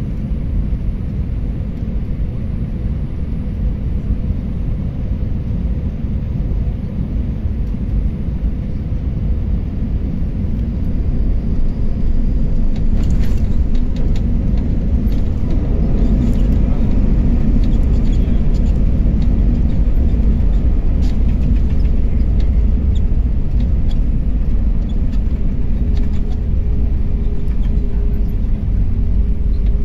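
Cabin sound of an Airbus A321 landing, heard from a window seat by the wing. A steady engine-and-airflow rumble on short final gives way, about 13 seconds in, to a touchdown with knocks and cabin rattles. The rumble then grows louder as the spoilers stand up and the jet decelerates down the runway.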